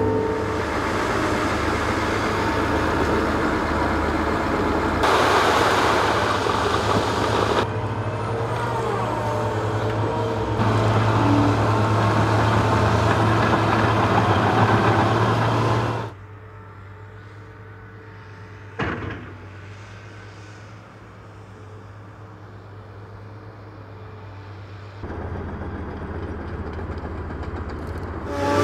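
Heavy diesel construction machinery running: an excavator, then a crawler bulldozer pushing fill, heard loud and steady with a deep hum across several cuts. After about sixteen seconds it drops to a much quieter background with a single sharp knock a few seconds later.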